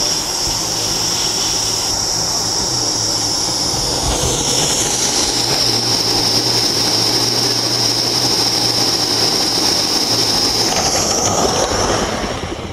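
Gauge One live-steam model of a BR Britannia locomotive running, giving a loud, steady steam hiss that swells about four seconds in and again near eleven seconds.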